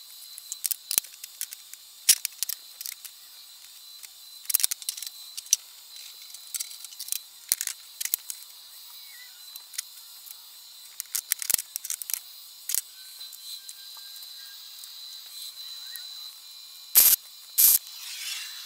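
Scattered light clicks and clacks of steel parts and magnetic welding squares being handled and set in place on a steel table, then near the end two short, loud bursts of tack welding.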